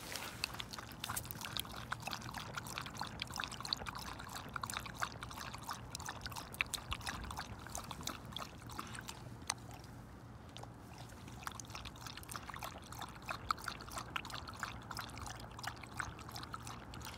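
A dog lapping water from the plastic trough of a portable one-touch water bottle: a quick run of wet laps that pauses briefly about ten seconds in.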